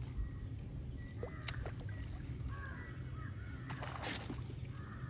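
A bird calling several times in short arched notes, over a steady low rumble, with a brief rush of noise about four seconds in.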